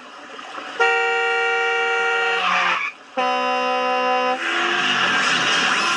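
Two long horn blasts in a sound-effect track. The first is higher and about two seconds long; after a short gap comes a lower one of about a second. A rushing noise follows near the end.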